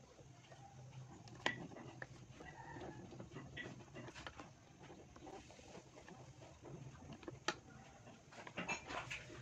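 Hand-cranked coil winding machine turning as enamelled copper wire is wound onto a transformer bobbin's secondary, its gears and turn counter giving faint, irregular clicks and ticks with light rubbing of the wire. A sharper click comes about a second and a half in and another at about seven and a half seconds.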